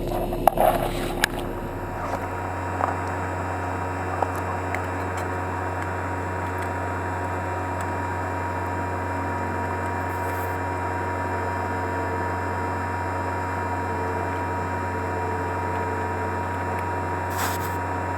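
Residential air-conditioner condenser running steadily, its compressor and condenser fan giving a constant low hum, back in operation after a failed capacitor was replaced. A few handling clicks near the start.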